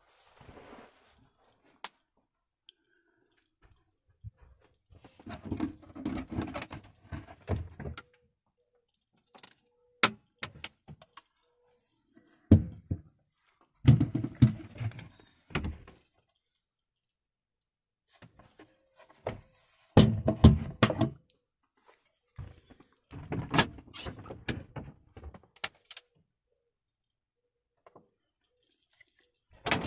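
Wooden cabinet and closet doors and their latches in a camper van being opened and shut and handled: several separate bursts of knocks, clicks and rattles, with silence between them.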